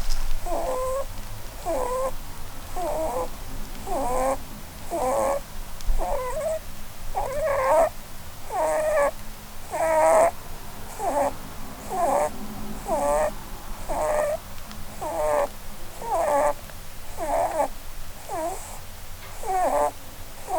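Holland lop rabbit snoring in her sleep: short snores with a wavering pitch, about one a second. Snoring like this is typical of Holland lops because of their facial bone structure, and vets judged it harmless in a healthy rabbit.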